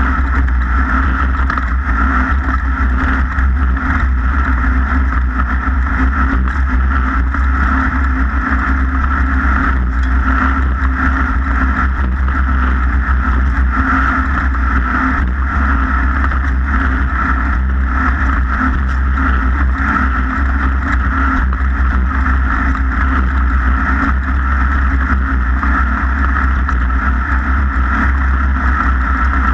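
A racing vehicle's engine running steadily at one even speed, with a constant low rumble under it.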